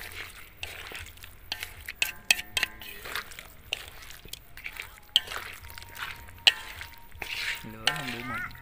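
Softshell turtle meat being stir-fried in a pan: repeated quick scrapes and clinks of the stirring utensil against the pan over light frying.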